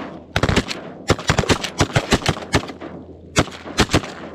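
A volley of shotgun fire from several semi-automatic 12-gauge shotguns shooting together: about fifteen sharp shots in quick, overlapping succession, thickest in the first two and a half seconds, then a few last, spaced shots near the end.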